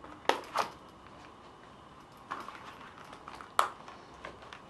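Blue plastic training revolver being drawn from a leather belt holster and handled: a few sharp clacks, two close together near the start and the loudest about three and a half seconds in.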